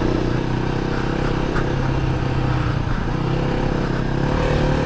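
Kawasaki KLR 250's single-cylinder four-stroke engine running under steady throttle while riding a dirt trail, its note rising a little near the end.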